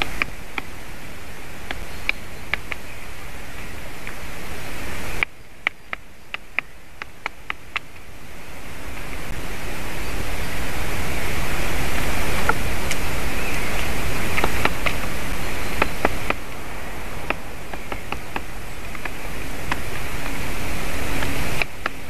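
Wind blowing across an outdoor microphone and through the trees, dropping off abruptly about five seconds in and then building again. Runs of short, sharp ticks sound over it.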